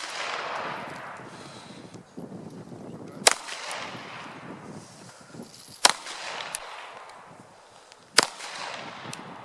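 Three single gunshots fired slowly, about two and a half seconds apart, each followed by a long echoing tail: deliberate one-handed shots at a range.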